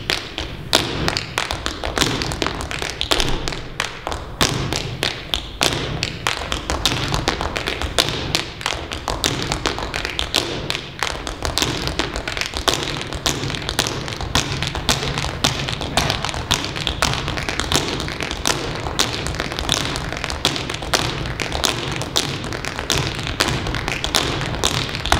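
Tap shoes striking a stage floor in fast, continuous rhythms, mixed with the thuds of basketballs being dribbled in time with the steps.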